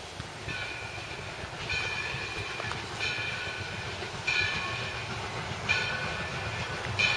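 Steam locomotive approaching, its chime whistle blowing in a series of blasts about a second long, one after another, over the low rumble of the train.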